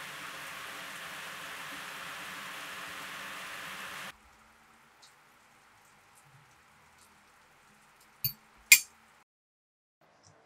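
Two sharp clinks of tableware about half a second apart, the second louder, a little over eight seconds in. Before them a steady hiss with a faint low hum cuts off suddenly about four seconds in, leaving only faint small ticks.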